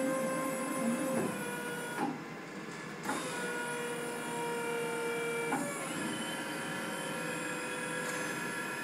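Telescopic dock leveller running as its lip slides out: a steady machine whine of several tones that step in pitch a few times, with small knocks about two and three seconds in. The whine is most likely the leveller's hydraulic pump motor.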